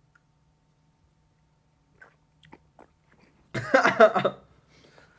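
Near silence with a few small mouth clicks, then a loud, short burst of a person's voice, a wordless reaction lasting under a second, about three and a half seconds in.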